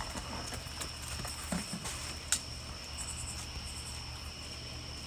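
Crickets chirping steadily in a night-time outdoor ambience over a low, steady hum, with one sharp click a little over two seconds in.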